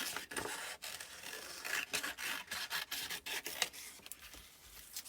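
Scissors cutting through paper in a run of irregular snips.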